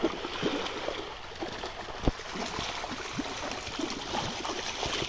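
Pond water splashing and sloshing in irregular small splashes, with one sharper thump about two seconds in.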